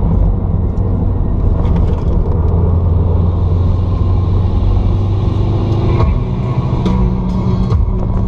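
Subaru WRX's turbocharged flat-four engine and tyre noise heard from inside the cabin while driving, a steady low drone. A few sharp clicks or knocks come in the last couple of seconds.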